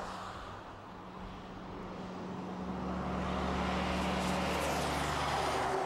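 Truck engine running steadily with a low hum that gets louder after the first second or so.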